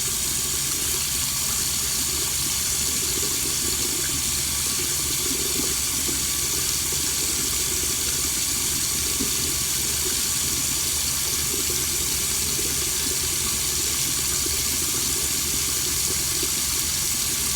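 Water running steadily from a tap, without change.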